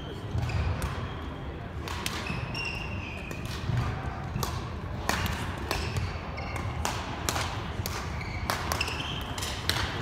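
Badminton play in a large sports hall: irregular sharp hits of rackets on shuttlecocks and footfalls, with sneakers briefly squeaking on the wooden court floor.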